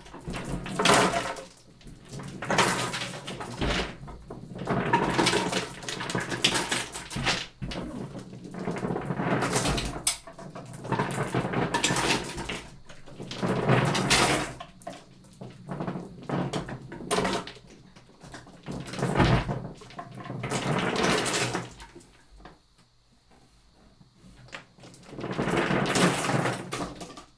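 Dozens of paint-coated marbles rolling in a rush across paper in a large wooden-framed tray as it is tilted back and forth, knocking against each other and the wooden sides. The surges come about every two seconds, with a quieter spell near the end before one last roll.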